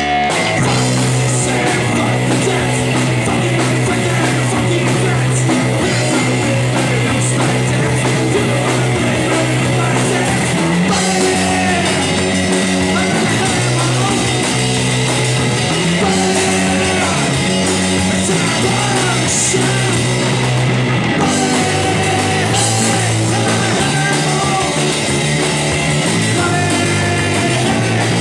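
Live rock band playing electric guitar, bass and drum kit, with the low notes changing every few seconds.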